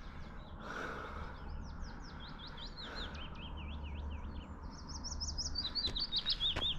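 A small songbird singing a long, fast series of short chirping notes, which quicken and rise higher about five seconds in.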